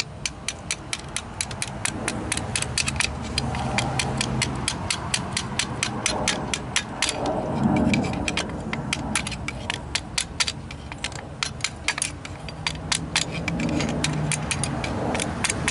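Hammer striking steel in quick, steady taps, about five a second, knocking out the old front wheel bearing of a 2005 Honda Civic after its race has been cut through with a Dremel.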